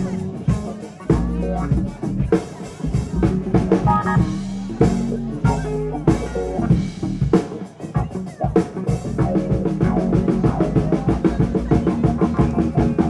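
Music with a prominent drum-kit beat and bass; the drumming gets busier about nine seconds in.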